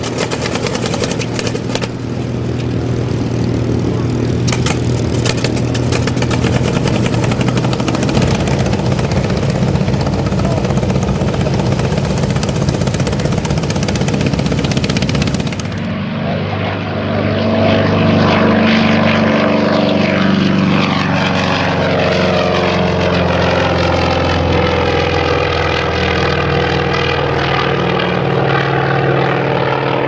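General Motors FM-2 Wildcat's nine-cylinder Wright Cyclone radial engine and propeller running loud at high power through the takeoff. About halfway through there is an abrupt cut to the fighter flying low, and the engine note sweeps in pitch as it goes by.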